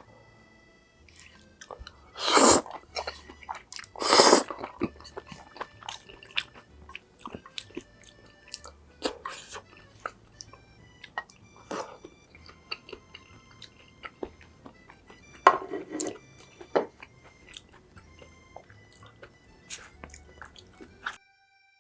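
Close-miked chewing and biting of Korean-Chinese takeout food, with many small wet clicks and a few louder half-second crunches or slurps about 2 and 4 seconds in and again near 16 seconds.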